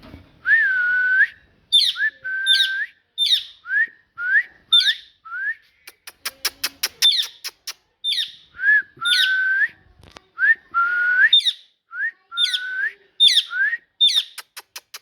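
Pet parrot whistling: a string of short rising whistles mixed with a few longer notes that dip and then rise. A quick run of sharp clicks comes about six seconds in and again near the end.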